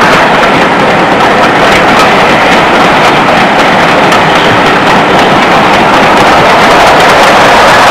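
Steam locomotive hauling a train of coaches, heard as a loud, steady rushing noise without distinct exhaust beats.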